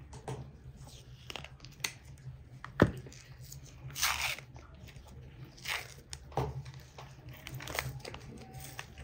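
A knife and hands trimming and tearing fat and membrane off a raw whole lamb carcass: short tearing and crackling rips among small clicks. One sharp knock comes a little before three seconds in.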